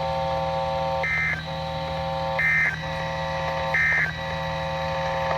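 Emergency Alert System end-of-message data tones: three short warbling digital bursts, about a second and a half apart, that mark the end of the alert broadcast. A steady electronic buzz runs underneath.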